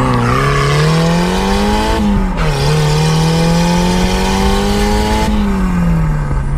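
Turbocharged 1.6-litre Mazda Miata four-cylinder under acceleration. The revs climb, dip at a gear change about two seconds in, climb again, then fall away near the end.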